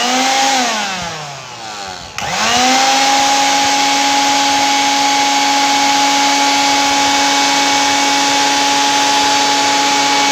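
Juicer blender's electric motor winding down, its whine falling in pitch. About two seconds in it is switched on again by touching the wire to the button contacts, comes up to speed quickly and runs steadily with a high whine.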